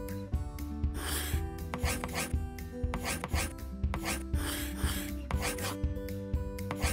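Scratchy drawing strokes on paper, going over bold outlines, a stroke every half second or so, over background music with steady held notes.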